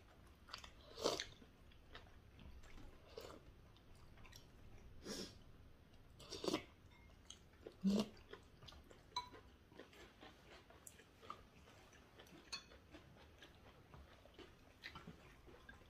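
Quiet sounds of people chewing food, with scattered light clicks and taps of chopsticks against bowls and plates. A few louder ones come about a second in and between about 5 and 8 seconds in.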